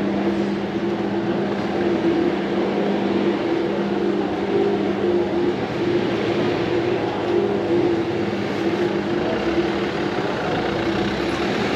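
Steady mechanical drone of an engine or motor running, two even tones held without change over a background of street noise.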